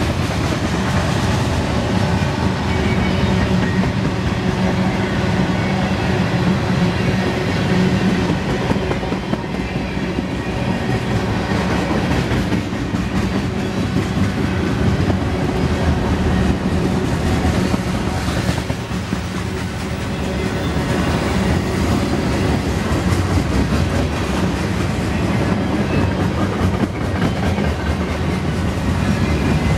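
Freight train cars, tank cars and autoracks, rolling past close by: a steady rumble and clatter of steel wheels on the rails, with repeated clicks throughout.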